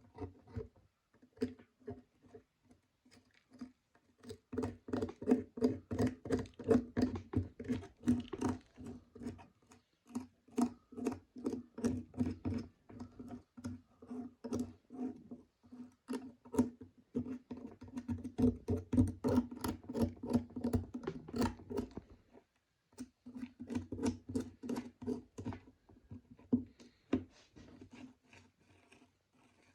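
Hand tools working the metal of old rusty pliers: rapid short scraping and clicking strokes, several a second, with a few brief pauses.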